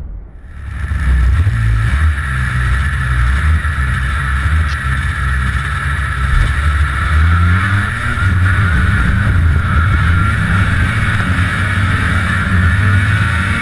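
Ski-Doo snowmobile engine running, its pitch rising and falling, with a steady hiss as the sled skims across river water.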